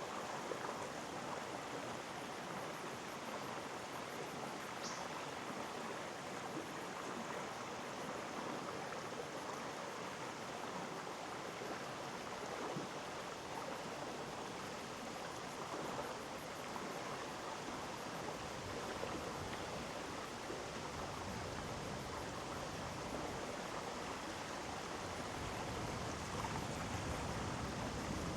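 Mountain stream rushing steadily over rocks in a gorge, an even hiss of flowing water. A low rumble builds in over the last few seconds.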